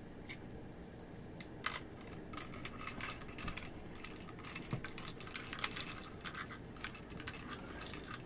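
Steel pull-through cleaning chain clinking against a Mauser K98 rifle as it is fed through the barrel: faint, irregular metallic ticks starting about a second and a half in.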